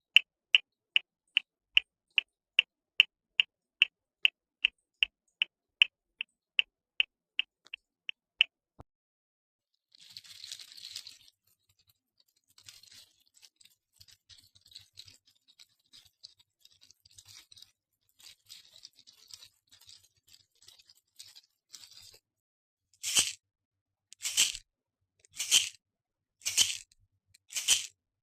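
Household objects handled for sound effects: first an even run of sharp, ringing clicks about three a second, then soft scattered crackling and rustling, then five loud rasping strokes about a second apart near the end.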